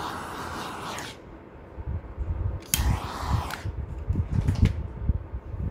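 Handheld gas torch hissing as its flame is passed over wet epoxy resin to pop surface bubbles; the hiss stops about a second in, then comes back briefly for about a second. A few light clicks and low handling thumps follow near the end.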